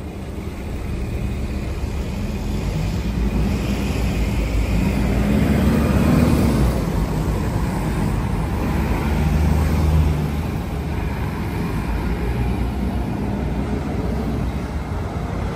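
Car traffic on a town street: a steady low rumble of engines and tyres, swelling as cars pass close, about six and ten seconds in.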